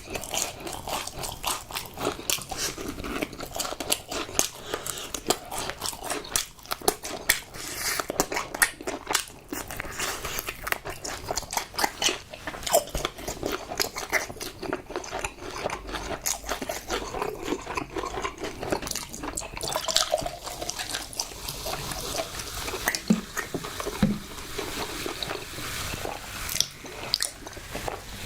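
Close-miked eating: a person biting into and chewing crunchy food, a dense, irregular run of crisp crunches and wet mouth sounds.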